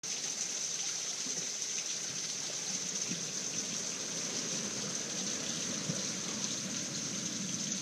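Water rushing steadily through a storm sluice, with a constant high hiss over it.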